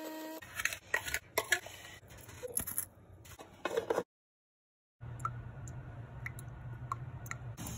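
Grind-size dial of a burr coffee grinder being turned, giving a series of irregular sharp clicks over the first few seconds. After a break, a steady low hum with a few faint ticks.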